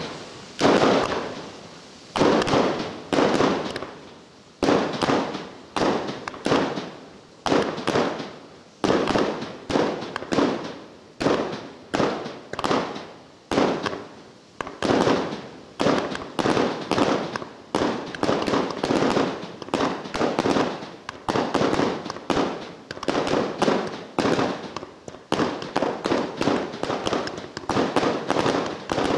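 A 100-shot consumer fireworks cake firing shot after shot, roughly one or two sharp reports a second, each trailing off before the next. Near the end the shots come closer together.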